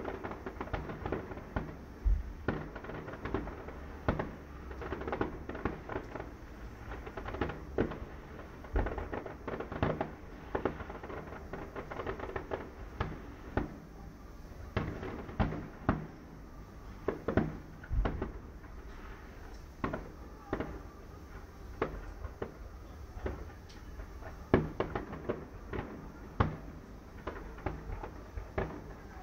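Fireworks display going off: an irregular string of bangs and pops, often one to three a second, some louder than the rest.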